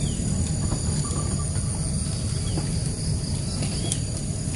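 Insects trilling steadily over a continuous low rumble.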